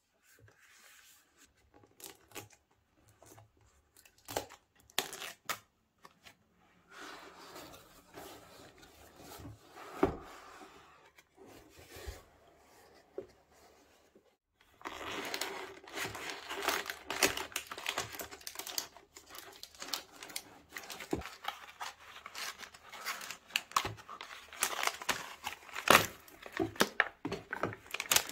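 Product packaging being opened and handled by hand: tearing and crinkling with scattered clicks and knocks, sparse at first and busy and continuous from about halfway.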